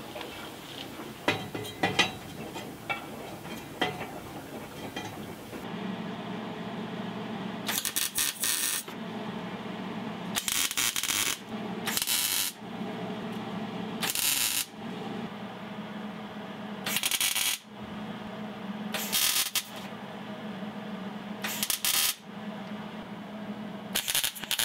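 Electric welder tack-welding the exhaust pipe: about eight short bursts of arc, each under a second and a couple of seconds apart, starting about eight seconds in, over a steady low hum. Before that come scattered clicks and knocks of handling.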